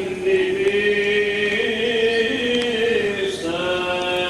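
Greek Orthodox liturgical chant: voices holding long sung notes, the melody stepping up and back down over a lower sustained line.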